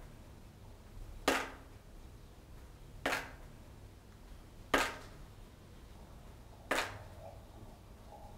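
A sharp knock repeating about every two seconds, each with a short ringing tail, over faint room tone.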